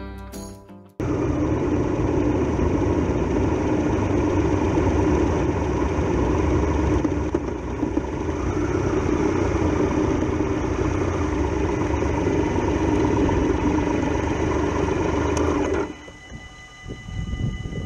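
Triumph Tiger Explorer XRx's three-cylinder engine running under way, with heavy wind noise on the bike-mounted microphone. Near the end it falls away as the bike stops, and a level crossing's warning bells ring.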